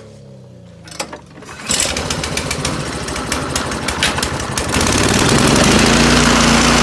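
Troy-Bilt 2410 snowblower's four-stroke engine starting after a shot of starting fluid into the spark plug hole, its first start of the season. A click about a second in, then the engine catches and runs, getting louder and steadier about five seconds in.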